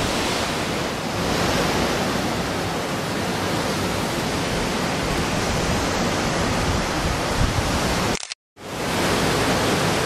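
Steady rushing noise of wind and sea waves, with no distinct events. It drops out completely for a fraction of a second about eight seconds in, then resumes unchanged.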